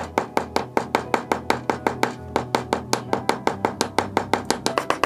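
Ball-peen hammer tapping the edge of an aluminum cuff blank against a bench block, sped up into a fast, even run of about eight light taps a second. Background music plays underneath.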